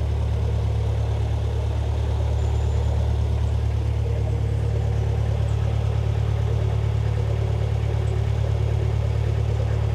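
Narrowboat's inboard engine running steadily while the boat cruises, a low even drone heard from the stern.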